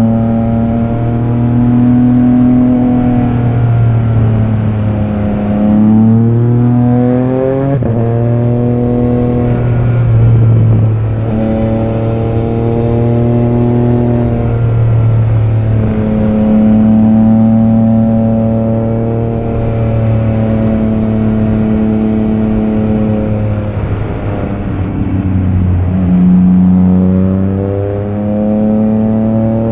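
Triumph Trident 660's three-cylinder engine and exhaust running under way, mostly at a steady pitch. The pitch falls and rises again about five seconds in, and falls then climbs again near the end.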